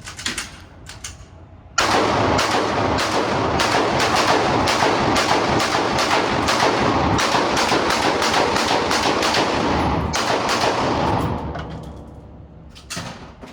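A semi-automatic firearm fired in a rapid, unbroken string of shots, starting about two seconds in and running for about nine seconds, the echo filling the gaps between shots. A few fainter shots follow near the end.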